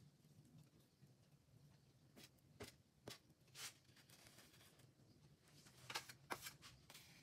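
Faint scraping of a cake scraper smoothing buttercream around the side of a cake on a turning cake stand. There are a handful of short scrapes and light clicks, a slightly longer one a little past the middle, and the two loudest near the end.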